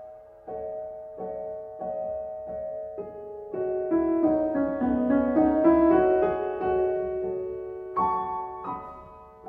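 Slow piano music: chords struck about every two-thirds of a second, filling out into a busier passage with a falling line in the middle, then louder chords near the end.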